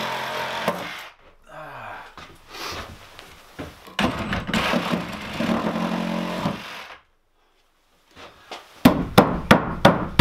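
A cordless power saw runs under load, cutting into wooden wall studs, first for about a second, then again for about three seconds after a pause. Near the end come several sharp knocks of wood being struck as a cut stud is knocked loose.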